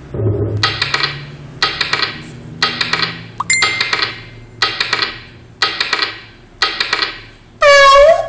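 Slideshow sound effect played through computer speakers: a short clink with a ringing tail, seven times at about one a second as each bullet point appears. Near the end comes a louder recorded cat meow as the cat picture comes up.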